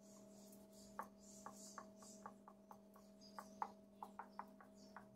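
Faint, light clicks and taps, a few a second, as hands gather cut strips of paratha dough on a silicone mat. A steady electrical hum runs underneath.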